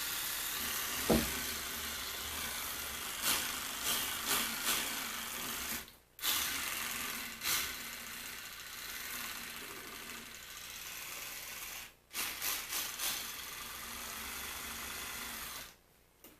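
Small motor of a modified electric toothbrush running with a steady whir, its brush scrubbing on metal, stopping abruptly twice and again near the end. The owner suspects the motor is not getting enough power.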